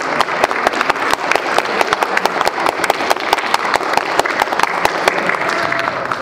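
Audience applauding, a dense clatter of many hands clapping.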